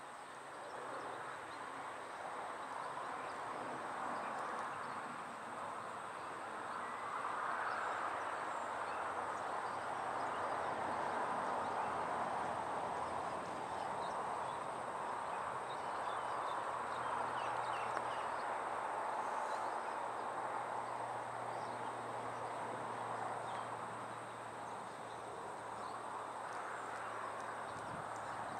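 Outdoor ambience: a steady rushing noise that swells and fades every few seconds, with faint high chirps scattered through it.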